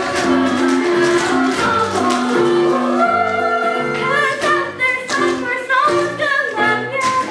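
A musical theatre song with a bass line stepping from note to note and voices singing over the accompaniment.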